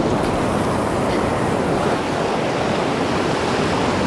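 Steady rush of ocean surf breaking on the beach, with wind on the microphone.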